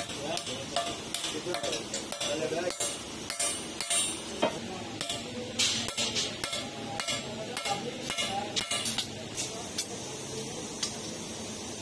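Hand hammer striking a thin steel strip laid on a steel rail: sharp metallic blows at an uneven pace of about two a second, which thin out and stop roughly three quarters of the way through.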